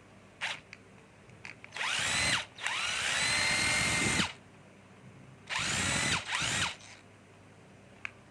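Cordless drill/driver motor test-run on the trigger three times: a short spin-up, a longer run of about a second and a half that settles at a steady high whine, then another short burst. Each run winds up in pitch and stops abruptly. A couple of faint clicks from handling the tool come before the first run.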